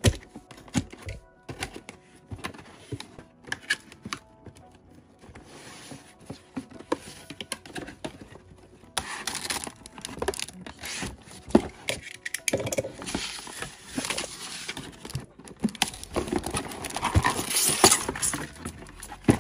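Cardboard toy packaging being cut open and handled: clicks, scrapes and rustles of cardboard and plastic. These grow denser and louder about halfway through as the box is opened up and the insert is handled. Quiet background music plays underneath.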